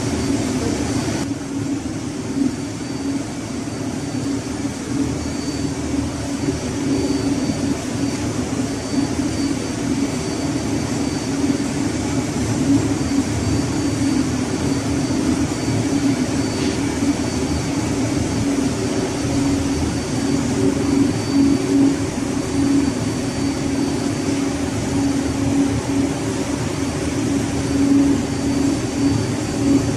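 Steady, loud drone of running machinery: ship engine-room background, with a low hum and a thin high whine.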